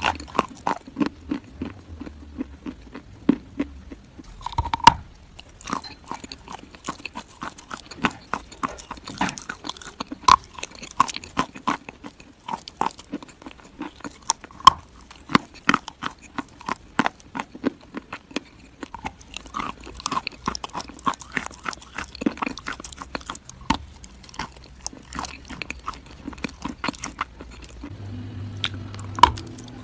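Close-up chewing of crunchy food: a rapid, irregular run of sharp, crisp crunches, several a second, with a faint low hum coming in near the end.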